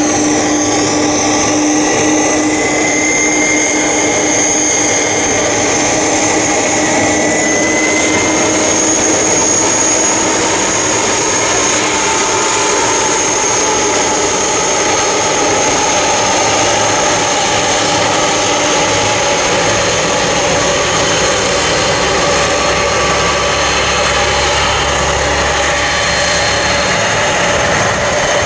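Boeing 747-400's four turbofan engines running at taxi power as the jet rolls slowly past close by: a steady loud rush with a high whine and a lower hum, both shifting slightly in pitch during the first several seconds.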